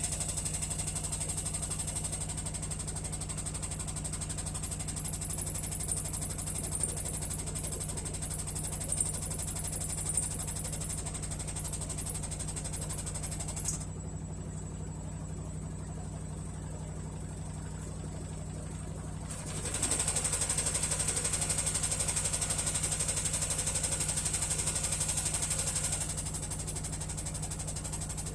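Hisense HW-DG80C washing machine starting its spin, the inner drum rattling and banging rapidly against the outer tub over a steady motor hum: an unbalanced or defective drum that keeps the spin from running normally. The rattle eases off for a few seconds in the middle and comes back louder about two-thirds of the way through.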